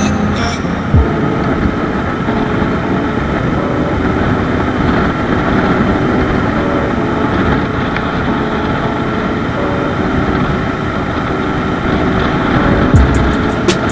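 Motorcycle running at a steady cruising speed, with a constant rush of engine and road noise. A few short sharp taps come near the end.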